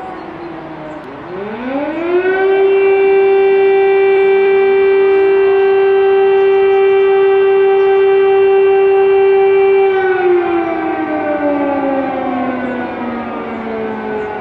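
Civil-defence air-raid siren wailing: its tone falls at first, rises over about a second and a half to a steady high note held for about seven seconds, then slowly falls again.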